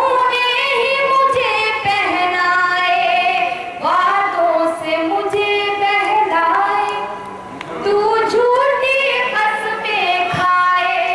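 A woman singing an Urdu ghazal solo in tarannum, the sung style of mushaira poetry, with long held, wavering notes in phrases broken by short dips.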